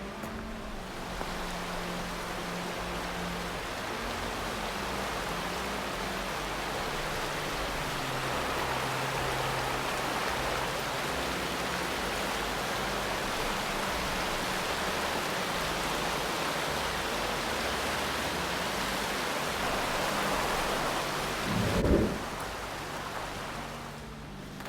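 Steady roar of rushing water, like a waterfall or mountain stream, with a short thump about 22 seconds in.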